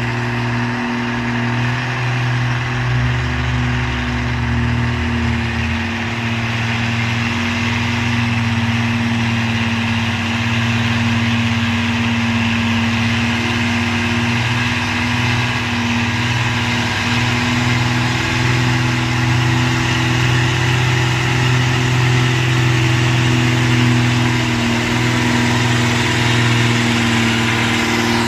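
A Nissan trailer truck's diesel engine running at steady, even revs, a continuous low drone, with a deeper rumble joining for a few seconds near the start.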